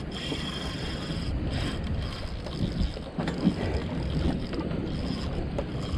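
Steady wind and water noise on an open fishing boat at sea, with wind buffeting the microphone.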